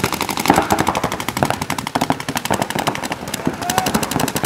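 Paintball markers firing in rapid, overlapping strings of shots, several guns going at once, for the whole stretch.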